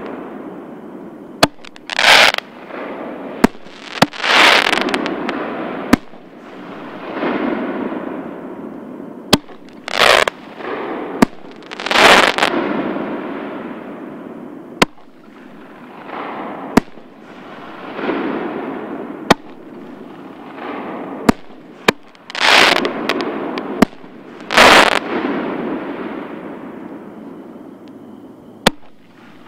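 Consumer artillery shells from a Pyro Demon Holy Grail kit fired one after another: sharp cracks and about half a dozen loud booms, each trailing off in a long echoing rumble.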